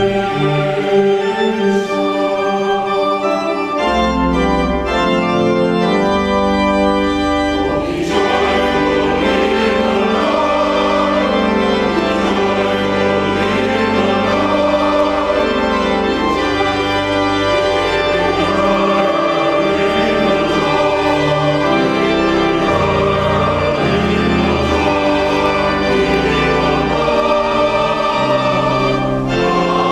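Church choir singing an anthem with pipe organ accompaniment, held chords moving steadily from one to the next.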